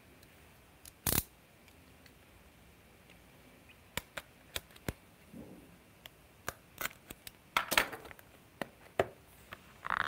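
A small cardboard phone-case box being opened: a pen-style blade slitting its seal stickers, then the box being handled and pulled apart. It makes scattered clicks, taps and light scrapes, with the loudest knock about a second in and a cluster of clicks near the end.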